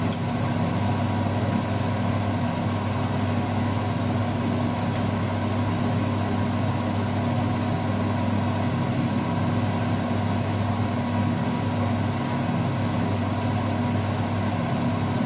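A steady machine hum: an unchanging low drone under an even hiss, like a motor-driven fan running.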